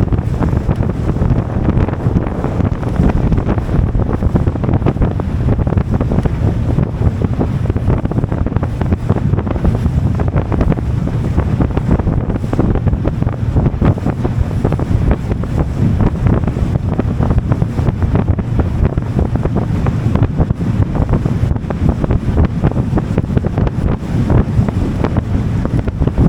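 Strong wind buffeting the microphone on a moving boat, a loud, steady low rumble, with the boat's running and water noise underneath.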